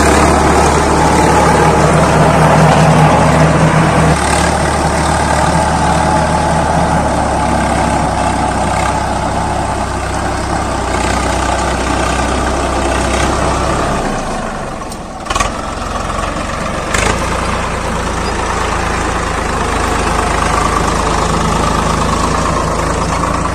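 Swaraj 855 FE tractor's three-cylinder diesel engine running steadily. About fourteen seconds in its low note dips, with two short knocks soon after, then it settles back to steady running.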